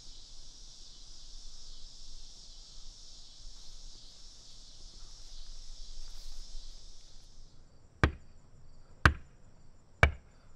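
Three sharp knocks by a hand on a window, about a second apart, near the end. Before them, a steady high insect drone that stops shortly before the first knock.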